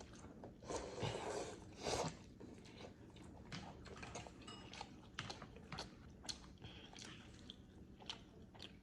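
A person chewing and biting food, with irregular small mouth clicks and a couple of louder bites or crunches about a second and two seconds in.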